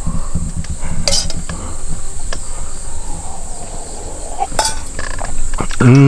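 Metal utensils clinking against a pot and dishes, with a few sharp clicks, over a steady high chirring of crickets. A short falling vocal exclamation comes at the very end.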